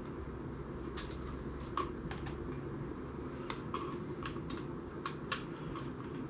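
Scattered light clicks and taps, irregular and like typing, of a screwdriver and fingers working on a plastic pistol grip as its screws are loosened. The sharpest click comes a little past five seconds in.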